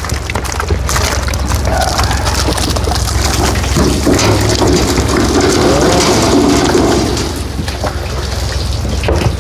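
Water splashing and rushing steadily as live crucian carp are released into a fishing pond, over a low engine hum.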